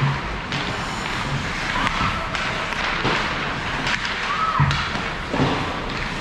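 Youth ice hockey play: skates scraping the ice and sticks and puck clacking, with several thuds of the puck hitting the boards and a few short high calls from young players.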